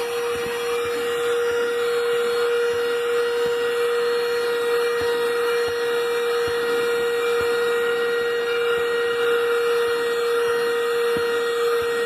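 Zhiyi cordless handheld car vacuum running steadily with a constant whine while its nozzle sucks dirt off car floor carpet, with a few faint ticks of grit.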